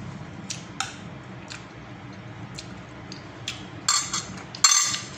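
Metal spoon clinking against ceramic plates and a bowl: a few light scattered clicks, then two louder clatters about four seconds in.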